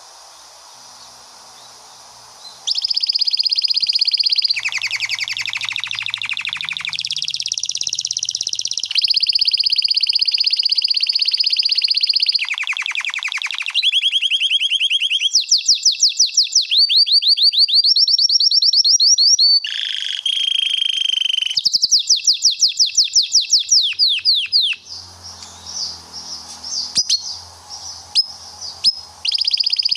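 Male domestic canary singing a long rolling song: high, fast trills and rolls of rapidly repeated notes, changing from one roll to the next in unbroken sequence. The song begins about three seconds in, after faint hiss, and breaks into shorter phrases near the end.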